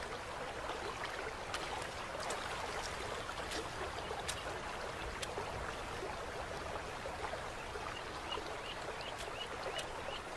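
River water running steadily, with scattered sharp ticks in the first half. From about eight seconds in, a short high chirp repeats about three times a second.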